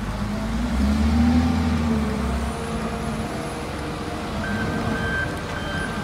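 Large Volvo wheel loader's diesel engine working under load while pushing a stone block, swelling about a second in and then easing off. A reversing alarm starts beeping steadily in the second half.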